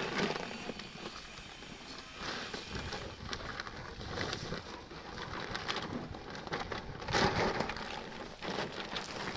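Granular urea fertilizer poured from a plastic sack into a corn planter's hopper: a steady rush of many small ticks as the pellets slide into the box, with the sack rustling, loudest about seven seconds in.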